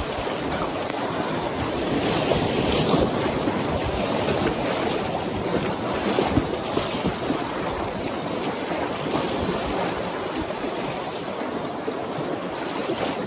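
Whitewater rapids rushing steadily around an inflatable kayak as it runs through them.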